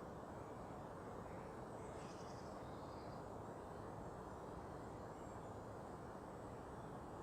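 Steady low hum of distant city traffic, with a faint, brief high bird call about two seconds in.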